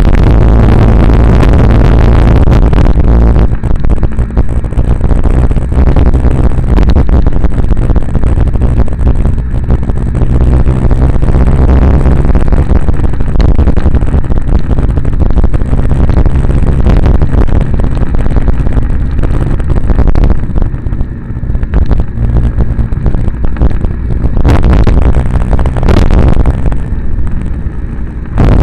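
Steady, loud vehicle ride noise picked up by a vehicle-mounted camera: heavy wind buffeting and road rumble with a low steady hum underneath, easing briefly about twenty seconds in and again near the end.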